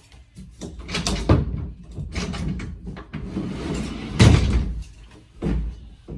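A door being opened and shut, with two loud knocks about a second and four seconds in and rustling, handling noise between them.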